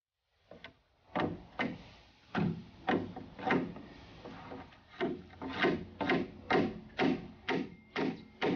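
Hatchet striking a wooden board where it meets a timber post: a string of sharp wooden knocks, irregular at first, then coming about two a second in the second half.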